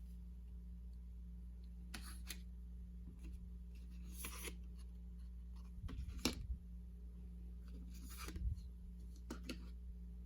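Unboxing handling sounds: a few brief rustles, scrapes and light knocks of the perfume packaging being handled, the sharpest about six seconds in, over a steady faint electrical hum.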